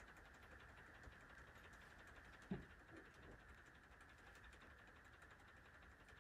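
Near silence: quiet room tone with a faint steady hiss. One brief, faint low sound comes about two and a half seconds in, with a couple of fainter ones just after.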